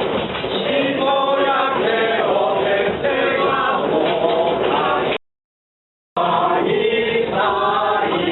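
A group of people singing together in unison. The sound cuts out completely for about a second midway, then the singing picks up again.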